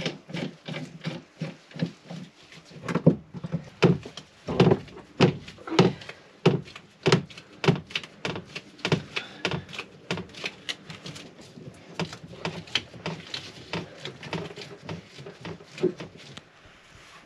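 A busy string of wooden knocks and metal clunks, irregular at about two or three a second, as bar clamps are set against a wooden frame and tightened to bend it to the hull.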